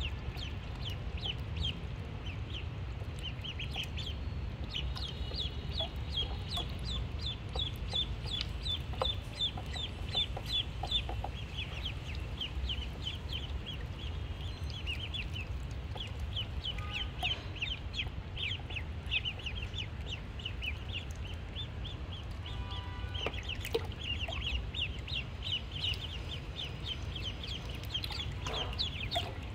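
A group of ducklings peeping continuously: many short, high peeps overlapping in quick succession, over a steady low rumble.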